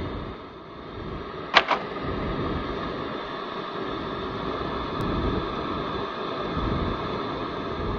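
Steady hum of room noise with no speech, broken by a sharp double click about a second and a half in and a faint tick about five seconds in.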